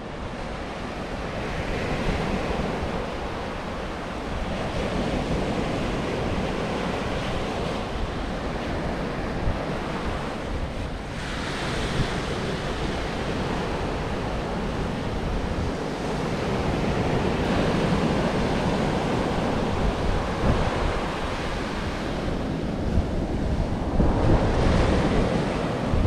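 Ocean surf breaking and washing in, swelling and easing every few seconds, with wind buffeting the microphone.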